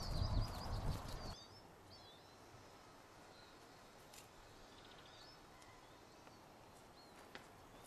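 Whippet puppies' paws scrabbling and thumping on gravel, with birds chirping, cut off abruptly about a second and a half in. Then a quiet outdoor background with occasional bird chirps and a few faint clicks.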